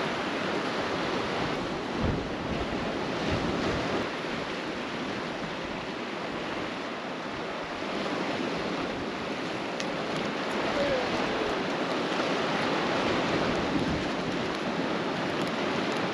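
Ocean surf washing over a rocky shore: a steady rushing noise that swells and eases a little, with some wind on the microphone.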